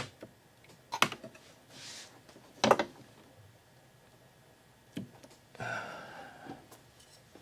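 A few light clicks and knocks of small hard parts being handled, three sharp ones spread over several seconds, with some softer rustling in between.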